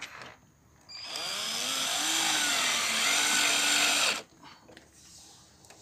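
Cordless drill driving a screw, its motor whining for about three seconds with the pitch dipping and rising under load, then stopping abruptly.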